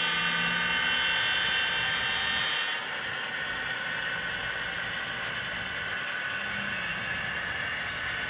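Long rake of model hopper wagons rolling past on model railway track, a steady rolling rattle of small wheels on the rails. A high whine sits over it at first and stops about three seconds in.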